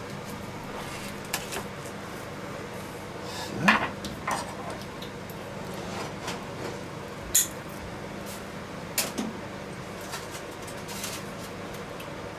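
Carving knife and meat fork knocking and scraping on a wooden cutting board as a roast duck is cut apart: a few scattered clicks and knocks, the sharpest near the middle, over a faint steady hum.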